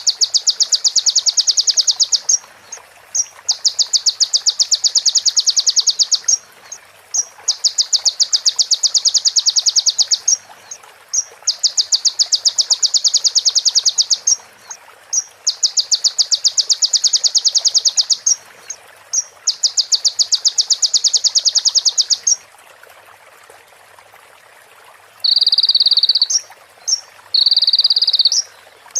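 Sunbird (kolibri ninja) singing a borrowed female-prinia (prenjak) call: six rapid, dry ticking trills, each about two seconds long with short pauses between them. Near the end, shorter buzzy notes follow.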